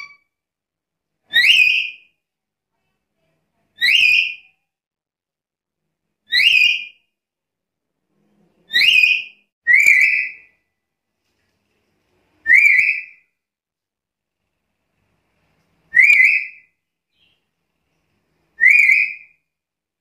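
Black-capped lory calling: eight short whistled calls, each a quick rising note that levels off, repeated every two to three seconds.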